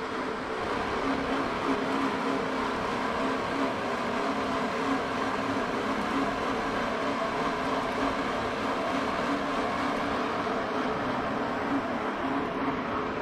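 Bicycle spinning on training rollers: a steady whir with a constant low hum, the pitch settling slightly higher about a second in.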